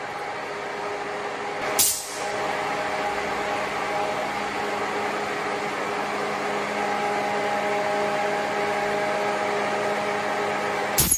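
A motor running steadily, a humming whir with a higher hiss, with a sharp click about two seconds in and another near the end.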